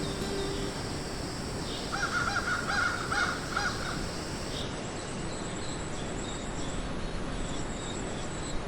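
A crow cawing, a quick run of about five caws about two seconds in, over a steady outdoor background hiss.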